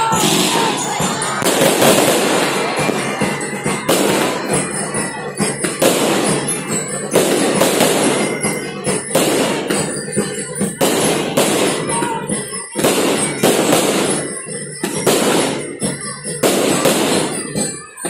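Aerial fireworks bursting overhead, a loud irregular series of bangs about one a second, each with an echoing tail.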